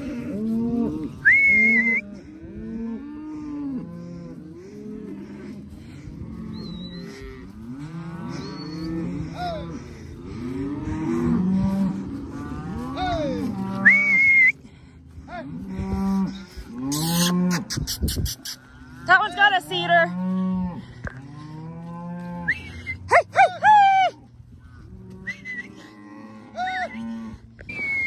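A herd of beef cows and calves mooing and bawling without pause, many calls overlapping, deep cow moos under higher calf calls. A few short high whistles cut through, and there is a brief burst of sharp clicks about two-thirds of the way in.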